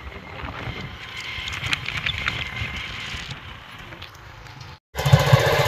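Road and engine noise from a moving motorcycle, a steady low rumble and hiss. It cuts out for a moment near the end, then comes back louder.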